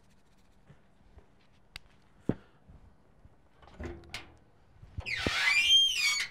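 A few sharp knocks and handling clatter, then the cook-chamber door of a Lone Star Grillz vertical offset smoker swung open, its hinges squealing loudly for about a second near the end with a pitch that rises and falls.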